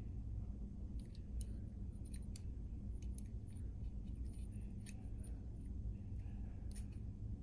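Faint, scattered clicks and light scraping of a stainless-steel digital caliper's jaws sliding and closing on a small 3D-printed plastic part, over a steady low hum.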